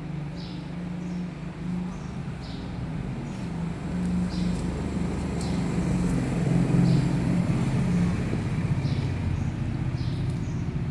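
A steady low motor drone that grows louder through the middle, with a short high chirp every second or two.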